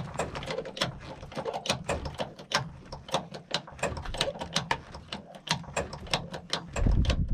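Ratchet wrench clicking over and over at an uneven pace of about five or six clicks a second, as lug nuts are worked off a trailer wheel. A low rumble comes in near the end.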